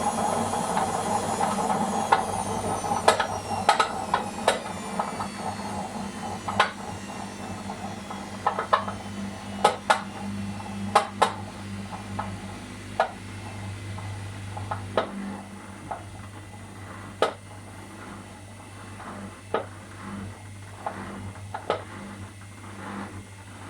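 Sharp, irregular knocks, coming every second or so at uneven spacing, over the steady hum of a car's running engine: the knock in the car. A high whine falls in pitch over the first several seconds.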